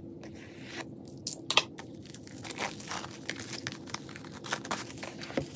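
Plastic shrink wrap being cut open and peeled off a cardboard album box: irregular crinkling and tearing of the film, with a sharper crackle about a second and a half in.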